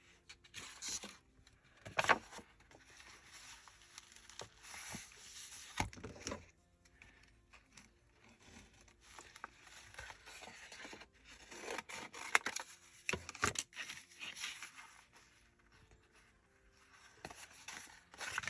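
Paper and lace being handled and folded: intermittent rustling and scraping with a few sharp taps, the loudest about two seconds in and again around twelve to thirteen seconds.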